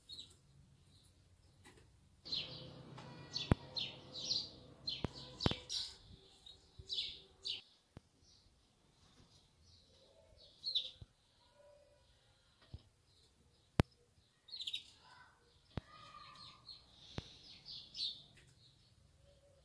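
Small birds chirping: many short, high chirps in clusters, busiest a couple of seconds in and again in the last few seconds. A few sharp clicks cut through, the loudest near the middle.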